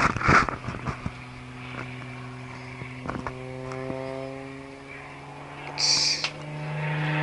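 Engine of an aerobatic propeller plane droning overhead as it climbs trailing smoke. Its pitch sinks slowly, then rises again near the end as the plane curves over the top. A few sharp knocks come in the first second, and a short hiss comes about six seconds in.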